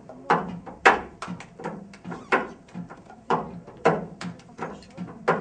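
A series of sharp, irregular knocks and clacks, about two a second.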